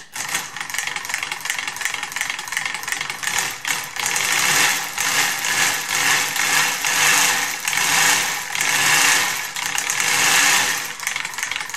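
3D-printed model V8 engine driven by eight 12 V solenoids starting and running: a fast, loud clatter of solenoid clicks and rattling printed plastic parts, starting suddenly. Its speed and loudness rise and fall several times as the throttle pedal is worked.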